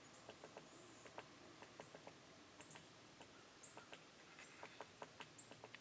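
Near silence of woods at daybreak: scattered faint soft ticks and a few brief, very high faint chirps.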